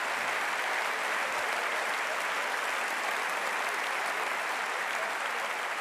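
Large theatre audience applauding, a steady dense clapping.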